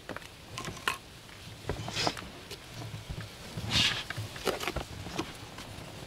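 Scattered small clicks and knocks with brief rustles, from anchor rope and fittings being handled in a boat; the two louder rustles come about two seconds in and just before four seconds.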